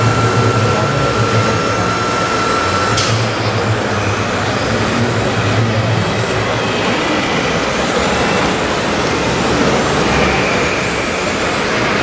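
Sound module of a radio-controlled model truck playing a diesel truck engine running, a steady low drone, with an even hall noise behind it. A thin steady whine cuts off with a click about three seconds in.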